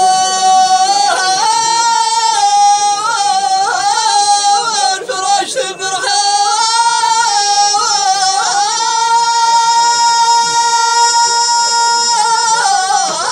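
Tamawayt, the unaccompanied Amazigh sung poetry of southern Morocco: a high-pitched male voice sings long, ornamented notes with wavering turns, then holds one long steady note for about three seconds past the middle before sliding down near the end.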